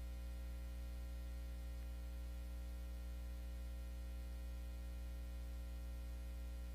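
Steady electrical hum with a buzzing stack of overtones over faint hiss. No music or speech.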